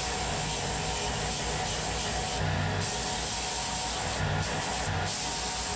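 A 4 x 36 inch belt sander running while a small wooden block is pressed against the moving belt and sanded. It makes a steady, dense rubbing noise that changes briefly a few times as the block is shifted on the belt.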